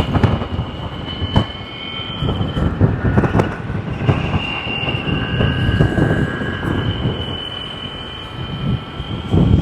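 Ultraviolette X47 electric motorcycle riding, its motor giving a high whine that creeps upward in pitch and breaks off and returns a few times, over a low uneven rumble.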